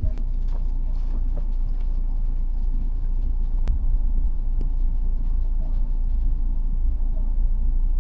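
Wind buffeting the microphone, a steady low rumble, with a few faint knocks and clicks, one clearer about four seconds in.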